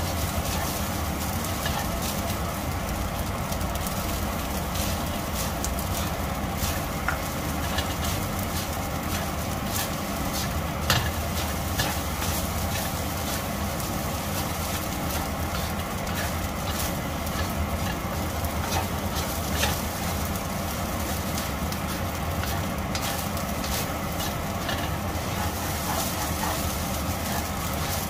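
Wooden spatula stir-frying rice in a stainless steel wok: steady scraping and sizzling with scattered clicks and knocks of the spatula on the metal, the sharpest about 11 seconds in, over a constant low rumble.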